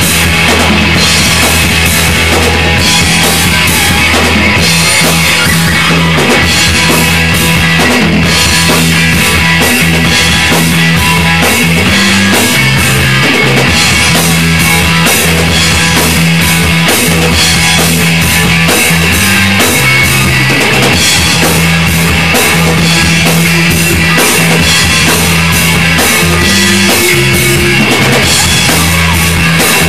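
Live rock band playing a song: electric bass holding long low notes, electric guitar, and a drum kit keeping a steady beat, all loud and continuous.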